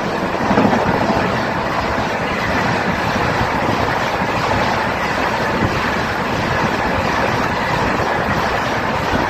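A train running at speed, a loud steady rush of noise that keeps on without a break.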